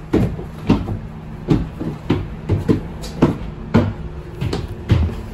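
Footsteps on the floor of a moving double-decker bus, about two knocks a second, over the steady low hum of the bus's engine.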